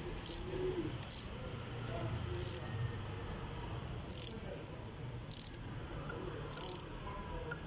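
A ratchet handle turns a hand tap, cutting a new thread into a damaged M10 bolt hole in an engine so it can take a steel coil thread insert. Six short bursts of ratchet clicking come one to two seconds apart as the handle is swung back between turns.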